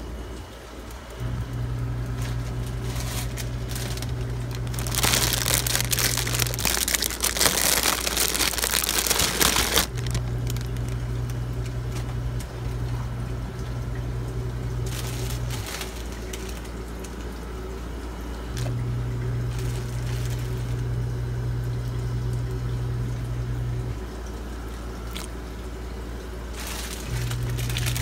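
A pot of grapes boiling in water, hissing and crackling, louder for a few seconds near the start and again near the end. Under it run a steady deep hum and a low drone that cuts in and out every few seconds.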